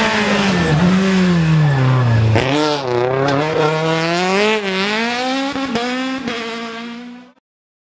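BMW Compact rally car's engine at full race pace: the engine note falls as the car slows for a corner, then rises and falls repeatedly as it is revved through the bend. The sound cuts off abruptly about seven seconds in.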